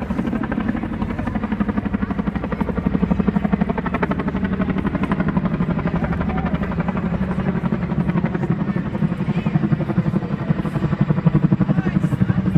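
Boeing CH-47 Chinook tandem-rotor helicopter flying low overhead, its rotor blades beating in a fast, steady pulse. It grows a little louder near the end.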